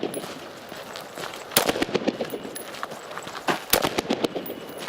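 Carbine shots fired in two quick pairs: the first about a second and a half in, the second about two seconds later, each crack followed by a short echo.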